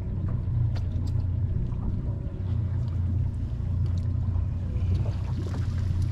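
A boat motor runs with a steady low hum. Near the end, water streams off a shrimp cast net as it is hauled up out of the water.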